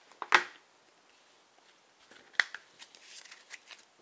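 Playing cards being handled and set down on a table: a sharp tap about a third of a second in, another near the middle, then a run of small clicks and light rustling of cards.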